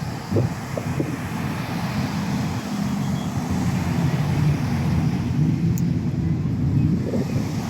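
Low, steady engine rumble with wind blowing on the microphone; the engine hum thickens in the middle and rises slightly near the end.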